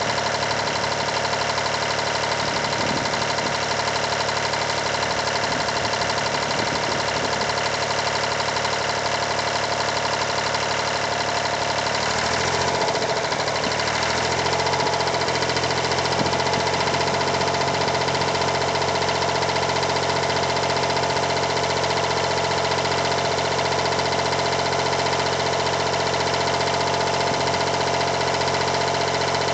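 Yanmar 336D tractor's rebuilt diesel engine running steadily. About twelve seconds in its speed shifts, and it then runs slightly louder.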